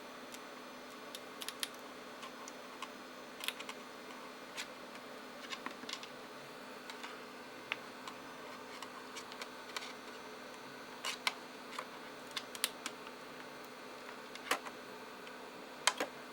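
Scattered light clicks and taps as a laptop SO-DIMM memory module is handled and fitted into the memory slot of an iBook G3, over a faint steady hum.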